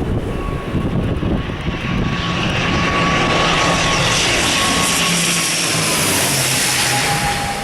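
ATR 72-600 turboprop passing close by on landing, its Pratt & Whitney PW127 engines and propellers making a steady whine over a growing rush. The whine drops in pitch about seven seconds in as the aircraft goes past.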